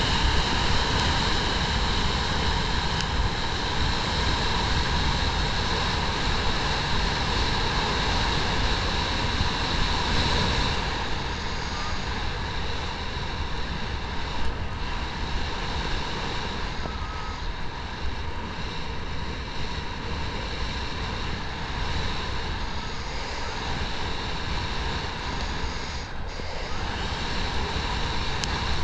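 Steady engine drone with a high whine, a little softer from about eleven seconds in.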